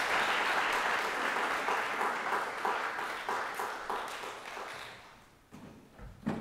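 Audience applauding, the clapping thinning to a few scattered claps and dying away about five seconds in. Two soft knocks follow near the end.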